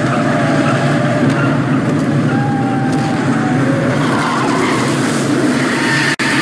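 Movie sound effects of a speeding car chase: engines racing and tyres squealing, loud and continuous, with a momentary cut-out about six seconds in.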